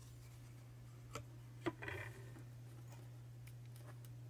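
A few faint clicks and a soft knock as a printed circuit board is handled and laid down on a work mat, over a steady low hum.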